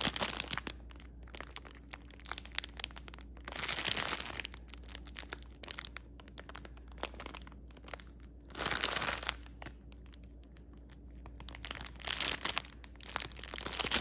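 Clear plastic bag of diamond-painting drills crinkling as it is handled and turned in the hands, with small crackles throughout and three louder spells of crinkling.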